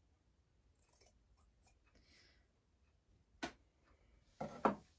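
Scissors snipping through fleece fabric, a few quiet cuts in the first couple of seconds. A sharp knock comes about three and a half seconds in, and a couple of louder knocks follow near the end.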